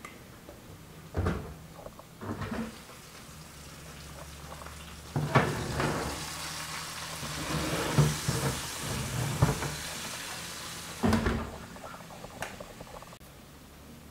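Kitchen handling: a few dull knocks, then an oven opened onto a steady sizzling hiss lasting about six seconds, with metal clunks of the oven tray, and one more heavy clunk near the end.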